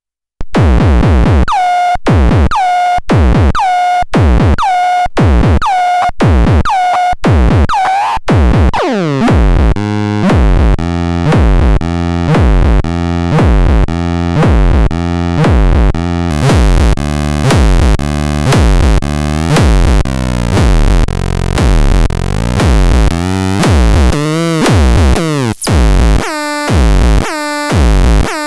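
Minimal techno played on synthesizer and drum machine: a steady kick about twice a second with a short pitched synth stab, a pulsing synth bass line joining about eight seconds in, and a brighter hiss-like layer filling the top about halfway through.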